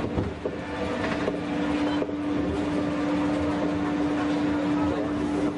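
Roller coaster train running along its track: a steady rattling rumble under a constant hum.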